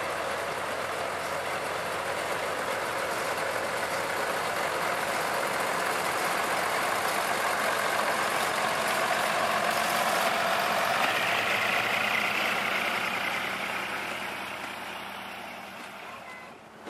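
Two coupled pre-war diesel railcars, Katakami Railway Kiha 303 and Kiha 702, pulling slowly past with their diesel engines running. The sound builds for about twelve seconds, then fades as the cars move off.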